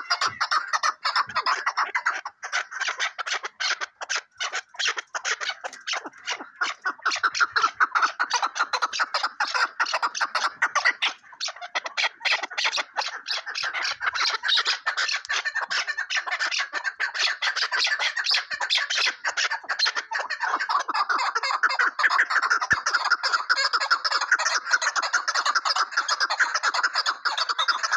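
Chukar partridges calling in a rapid, continuous chatter of clucking notes, the chuck-chuck calls used to lure partridges in hunting; the calling grows denser and more even about two-thirds of the way through.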